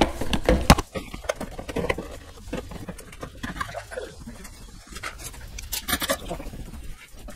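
Irregular clicks, knocks and scrapes of hands and tools working the mini bike's plastic panels and headlight housing loose. The loudest knocks come in the first second.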